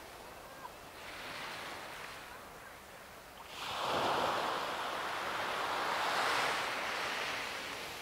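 Ocean waves washing onto a shore: a small swell about a second in, then a larger wave breaks a little after three seconds in and its wash slowly ebbs away near the end.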